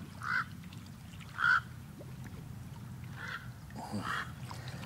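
Waterfowl calling on a lake: four short calls, spread about a second apart, over a low steady background.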